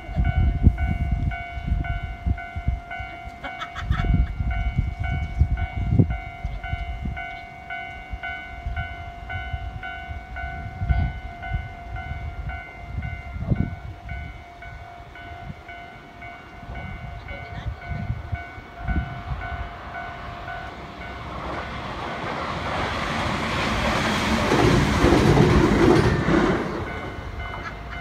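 Railway level-crossing alarm ringing steadily, with gusty wind rumbling on the microphone. Near the end a passing vehicle swells up loud and then falls away.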